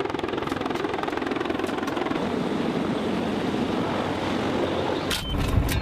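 CH-53 heavy-lift helicopter hovering close by with a slung load, its rotors giving a steady rapid chop over the turbine noise. About five seconds in, a few sharp knocks and low thumps come in.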